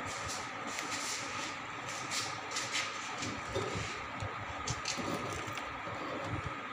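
Moulding sand being scooped, broken up and spread by hand in a moulding box, in short, irregular gritty rustles and scrapes, over a steady faint hum.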